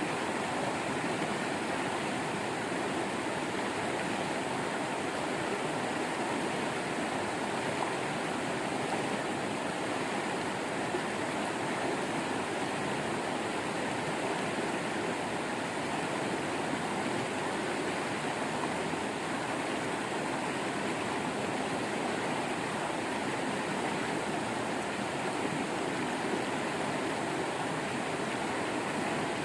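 Waterfall, its water rushing in a steady, unbroken stream.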